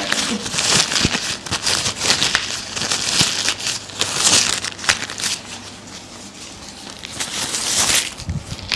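Rustling and crinkling as a patient is handled and moved during chiropractic treatment, coming in uneven swells with a few short clicks.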